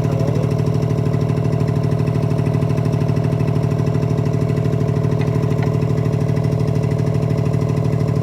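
A motor or small engine running steadily, with a fast, even throb.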